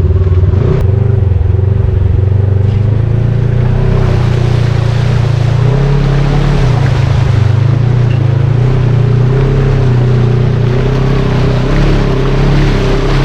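Off-road vehicle engine running steadily under load, its pitch drifting up and down a little, over a constant rushing noise.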